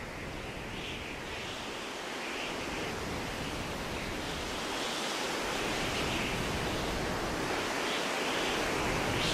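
A steady rushing noise, like surf or wind, slowly growing louder; no piano or other music is heard.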